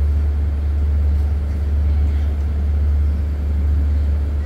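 Steady low rumble of a diesel passenger train idling at the platform.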